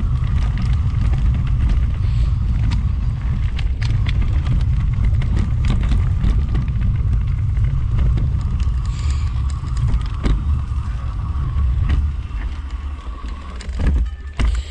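Wind rumbling on the microphone of a camera riding a mountain bike down a bumpy dirt trail, with frequent sharp knocks and rattles from the bike over the ruts. A faint steady whine runs underneath, and near the end the rumble eases as the bike comes onto asphalt, with a couple of sharp knocks.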